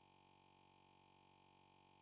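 Near silence: a faint, steady electronic hum.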